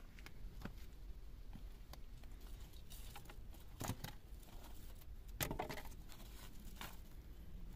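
Scattered light rustling and scuffing as white woven plastic sacks are handled and feet shift on dry dirt and stones, with two louder crinkling rustles about four and five and a half seconds in.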